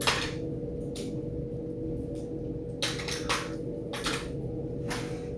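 A hand spray bottle spritzing water several times, each pump a short hiss, over a faint steady hum.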